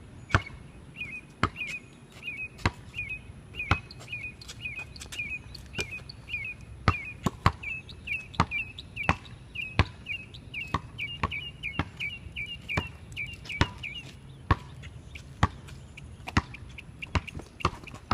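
Basketball bouncing on pavement, sharp knocks about once a second and sometimes closer together as it is dribbled. A bird repeats a short chirp two or three times a second in the background until about two-thirds of the way through.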